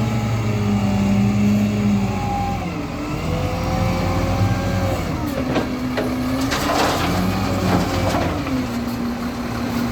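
Diesel engines of heavy loading machinery running, revving up and dropping back several times. A burst of clattering knocks comes about five to eight seconds in.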